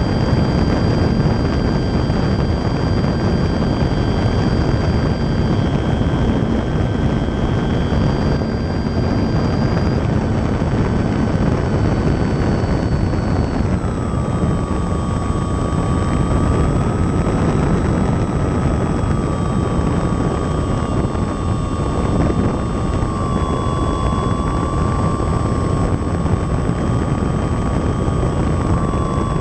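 Onboard sound of a Baby Ace RC model airplane in flight: the motor and propeller give a steady high whine over a dense noise of air rushing past the airframe. The whine steps down in pitch about halfway through and shifts slightly again near the end.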